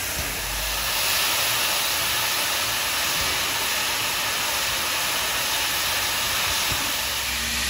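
Steam venting with a loud, steady hiss from the top of the boiler of White Pass & Yukon 192, a 1943 Baldwin-built 2-8-2 steam locomotive standing with steam up.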